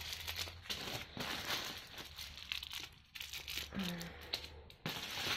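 Small plastic bags of diamond-painting drills crinkling and rustling as they are handled and pulled from a larger plastic bag, with a brief lull about three seconds in.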